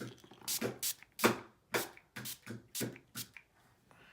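Makeup setting spray being sprayed in about eight short hisses, roughly two a second.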